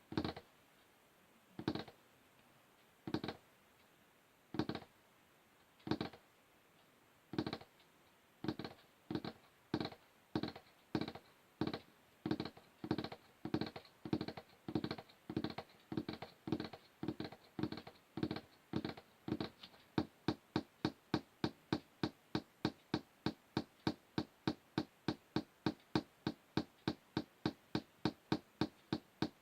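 Fingers tapping on a wooden surface: slow single taps about a second and a half apart at first, quickening steadily, then switching about two-thirds of the way in to faster, crisper taps at about three a second.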